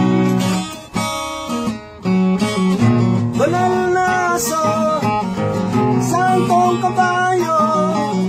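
Steel-string acoustic guitar strummed in chords, with a man singing along from about three seconds in.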